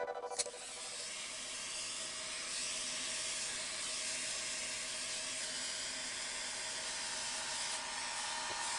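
Rotary carving tool running steadily with a burr grinding into wood: an even hiss with a faint motor whine under it.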